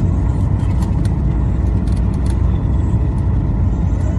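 Jet cabin noise inside a Boeing 737-800 descending on approach: a steady low rumble of the CFM56 turbofan engines and airflow, heard from a rear window seat.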